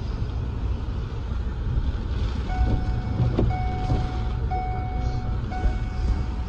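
A vehicle's reversing alarm beeping about once a second, each beep long with a short gap, starting about two and a half seconds in, over a steady low engine rumble.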